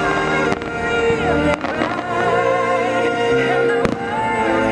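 Fireworks show soundtrack music playing loudly, with three sharp firework bangs cutting through it, about a second apart and then two seconds later.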